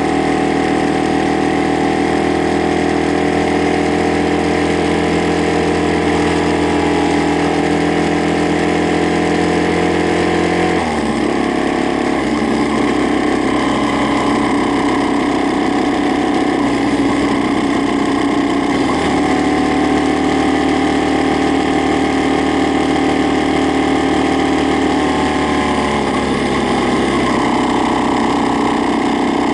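Honda Ape motorcycle's single-cylinder four-stroke engine running steadily at idle with a loud abnormal noise. Its running note shifts about eleven seconds in and changes again a couple of times later.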